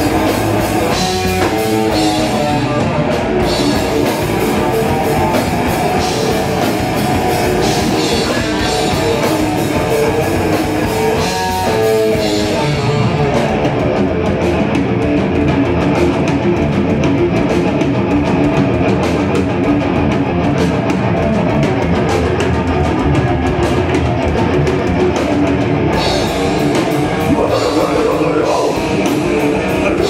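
A heavy metal band playing live at full loudness: distorted electric guitars over a drum kit, with cymbals.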